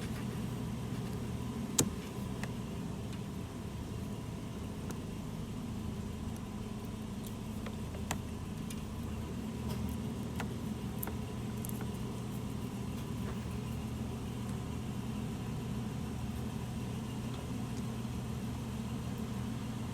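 A steady low mechanical hum, like an idling engine, runs throughout. About two seconds in there is a single sharp click as a scotch-lock wire tap connector is pinched shut, with a few fainter clicks later.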